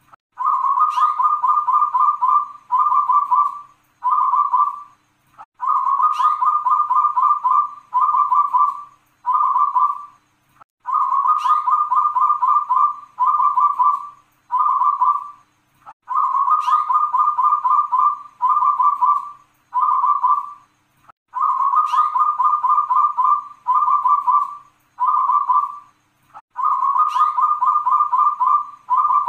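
Zebra dove (perkutut) singing its cooing song over and over, about every five seconds. Each song opens with a rapid trilled coo about a second long, followed by three shorter coos ("kung kung kung").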